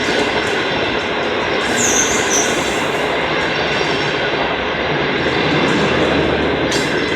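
Passenger train's coaches rolling past on the rails: steady wheel-and-rail noise, with a brief high wheel squeal about two seconds in.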